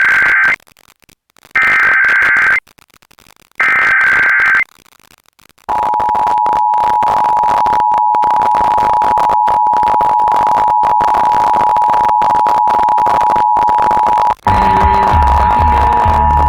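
Emergency Alert System test signal. It opens with three short warbling data bursts of the SAME header, each about a second long and a second apart. About six seconds in, the two-tone attention signal starts: two steady tones sounding together. This breaks off for an instant near the end and comes back with other broadcast audio underneath.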